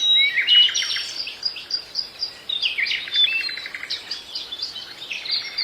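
Goldfinches singing: a continuous fast twittering song of rapid trills, chirps and a few short held whistles.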